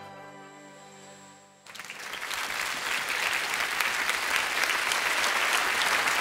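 The last piano chord of a ballad rings out and fades for under two seconds. Then an audience starts applauding, building up over about a second and holding steady.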